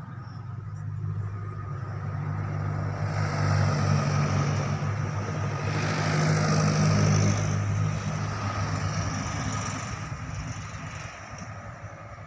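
A truck's engine hum and tyre noise swell as it passes close by. The sound is loudest about six to seven seconds in, then fades away.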